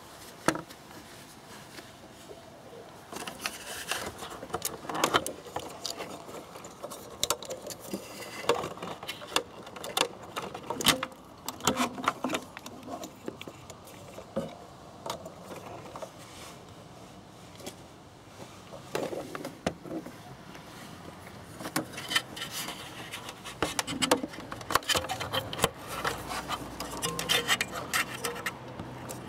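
Rubbing, scraping and small clicks of hands working the plastic and rubber parts around a motorcycle headlight's bulb socket: the dust cover, wire bulb clip and connector. There is a quieter stretch in the middle.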